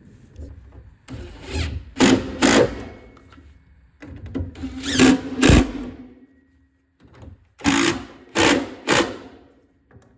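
Cordless drill-driver running screws in several short bursts, often two close together, its motor whirring with each pull of the trigger.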